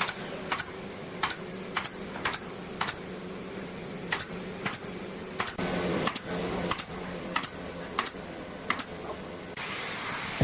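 Woodworking taps: a series of sharp, light taps about once or twice a second over a steady low hum.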